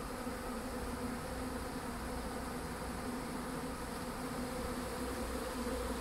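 A swarm of honey bees buzzing in a steady, low drone as they fly around and cluster on a bait hive they are moving into; calm, but noisy.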